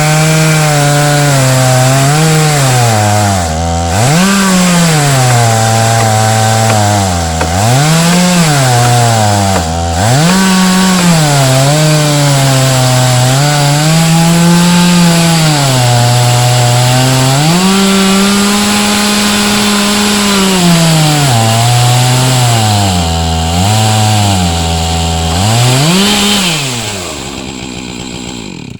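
Chainsaw in an Alaskan chainsaw mill ripping lengthwise through a log at full throttle. Its engine pitch sags under load and picks back up again and again through the cut. Near the end the saw dies down as the plank comes free.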